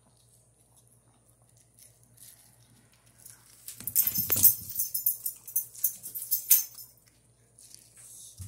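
A chihuahua gnawing kernels off a cooked corn cob held in a hand, with loud, rapid crunching close to the microphone from about three and a half seconds in until about seven seconds.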